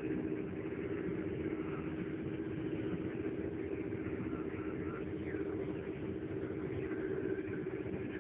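Steady drone of a car driving on a paved road, heard from inside the cabin.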